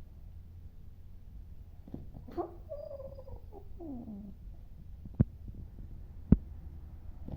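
Sleeping dog whimpering in a dream: a wavering, muffled whine about two seconds in that slides down in pitch, followed by two sharp clicks.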